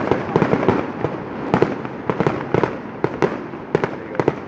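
Aerial fireworks going off in rapid succession: many sharp bangs and crackles, several a second, with no let-up.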